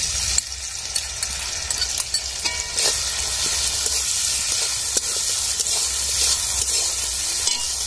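Onion and capsicum pieces sizzling steadily in hot oil in a metal wok as a mixed sauce of soy, green chilli and tomato sauce goes in, with a metal spatula scraping and clicking against the pan as it is stirred.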